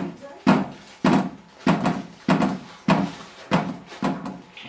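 Repeated bangs of a toddler hitting a table, about eight in a steady rhythm of roughly one every 0.6 s, each ringing out briefly, stopping shortly before the end.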